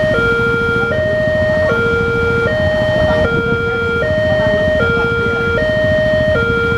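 Electronic warning alarm of a railway level crossing sounding with the barriers down, alternating steadily between a higher and a lower tone, each held about three-quarters of a second: the signal that a train is approaching.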